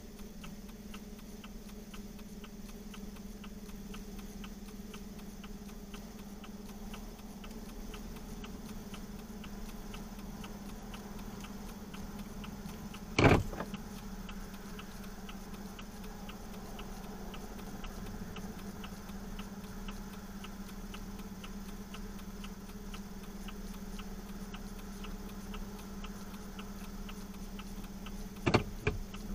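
Steady low hum with fast, evenly spaced ticking throughout. A single sharp knock comes about halfway through, and two more close together near the end.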